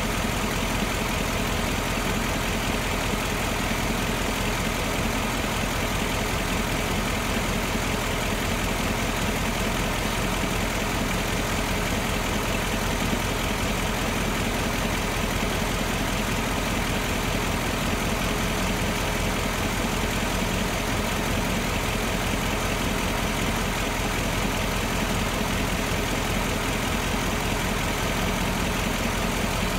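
2015 Ford Mustang GT's 5.0-litre V8 idling steadily.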